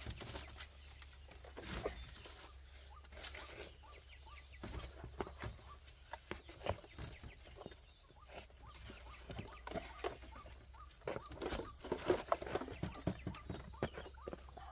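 Irregular light knocks, clicks and rustling of bamboo slats, poles and dry thatch being handled, busiest about three-quarters of the way through.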